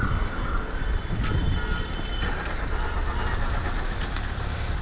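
Hyundai hatchback's engine running as the car is driven slowly across a concrete yard, a steady low rumble.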